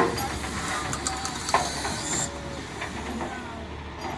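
Steel clanks as a locomotive is hauled by chain onto a steel lowboy trailer: a sharp clank at the start and a knock that rings briefly about a second and a half in. Underneath is a steady hiss and the low running of an idling diesel truck.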